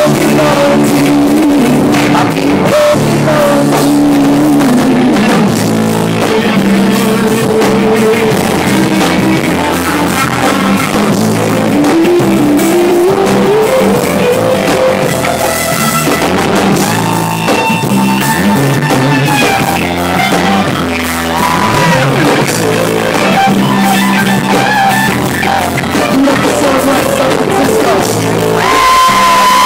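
Live rock band playing loud through a club PA, heard from close to a speaker: electric guitar melody lines sliding up and down over bass and a drum kit.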